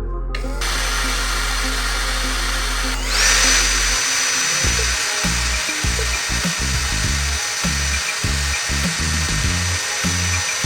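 Electric power tool motor switched on and running, rising to a steady high-pitched whine at full speed about three seconds in. Background music plays underneath.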